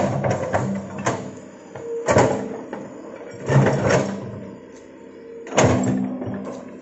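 Hitachi hydraulic excavator at work: the diesel engine runs steadily while the bucket digs, scrapes and drops soil, giving a series of loud, rough surges about every one to two seconds.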